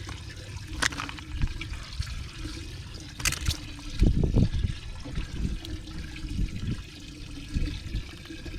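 Water trickling and splashing in a bass boat's livewell as fish are handled, with a few sharp clicks and a loud low thud about four seconds in.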